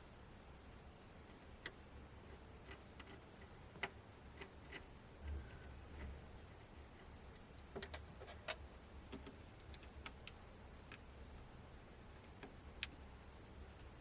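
Faint, irregular clicks and light taps of small tools and parts being handled during tablet disassembly, about a dozen over the stretch, over a low steady hum.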